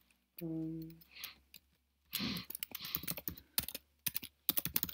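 Typing on a computer keyboard, a few scattered keystrokes becoming a quick run of clicks over the last two seconds. A short hummed voice sound comes about half a second in.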